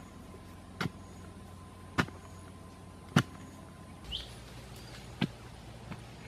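A thick wooden pole jabbed down into packed earth at the bottom of a pit, thudding about once a second. A short rising bird chirp sounds about four seconds in.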